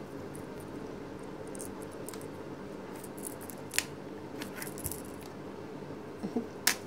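Small clicks and taps of plastic headset parts being handled and fitted together: a sharp click near the middle, a few lighter ones just after, and another click near the end, over a steady background hum.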